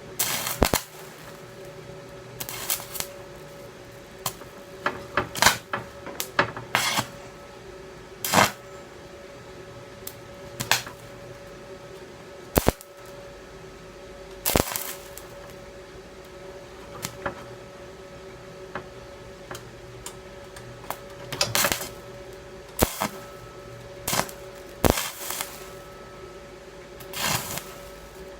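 Stick (arc) welding with a cast steel rod at 44 amps on thin metal: short, irregular crackling bursts and sharp pops as the arc is struck and breaks off again and again, the rod sticking. A steady hum runs underneath.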